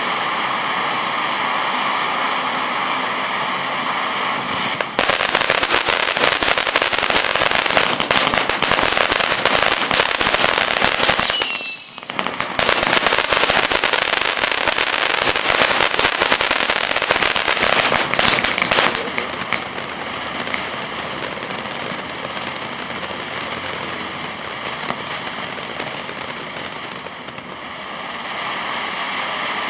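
Ground fountain firework burning: a steady spray hiss that turns into a louder, dense crackling spray about five seconds in, with a brief whistle near the middle, then settles back to a quieter hiss for the last ten seconds.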